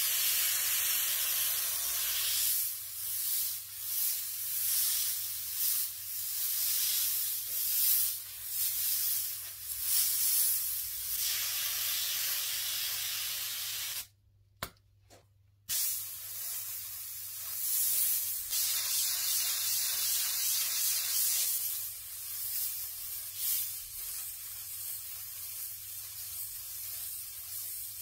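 Airbrush hissing as compressed air sprays paint onto fabric. The hiss swells and fades every second or so as the trigger is worked, and it cuts out briefly about halfway.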